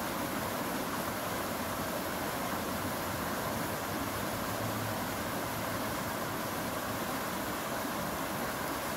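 Steady rushing of a stream running over a shallow riffle, an even wash of water noise that does not change.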